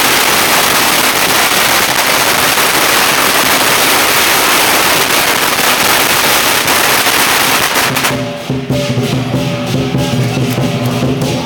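Strings of firecrackers going off in a dense, continuous crackle. About eight seconds in the crackle thins to scattered pops, and the lion dance percussion band comes through with a ringing gong over drum and cymbal strokes.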